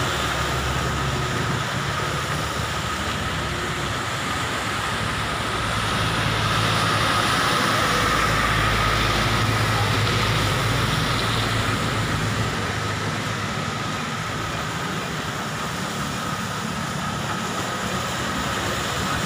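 Steady noise of heavy rain, with a low engine hum underneath; it swells slightly from about six seconds in and eases off again after eleven.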